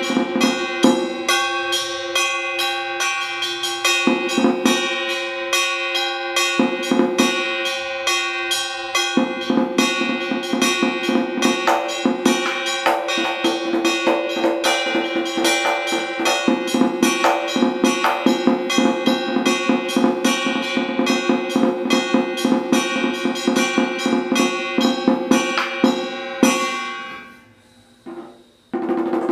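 Vietnamese trống chiến war drum played fast with two wooden sticks: a dense, continuous run of strokes on the skin head, with the drum's pitches ringing through. The playing breaks off briefly near the end, then starts again.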